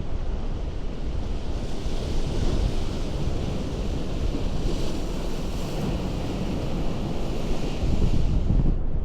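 Ocean surf on a rocky coast: the hiss of a wave washing in swells from about two seconds in and dies away near the end, over a steady low rumble with wind buffeting the microphone.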